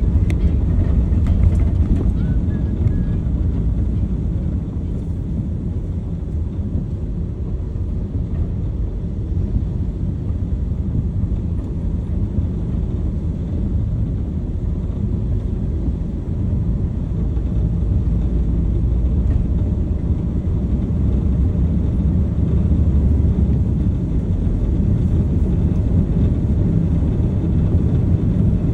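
A car driving: a steady low rumble of engine and tyre noise that stays at much the same level throughout.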